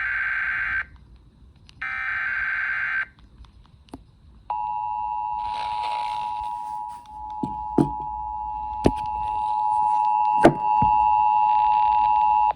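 Emergency Alert System alert: the last two bursts of the SAME digital header, buzzy data bursts about a second each, then after a short pause the steady two-tone attention signal held for about eight seconds, announcing a Severe Thunderstorm Warning. A few sharp knocks fall about halfway through the tone.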